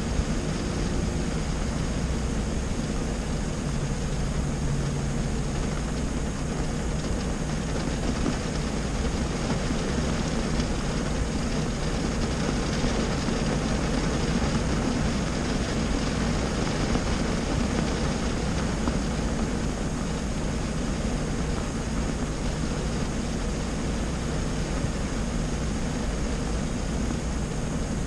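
Rain falling steadily on a stationary car, heard from inside the cabin, over a low steady engine idle hum.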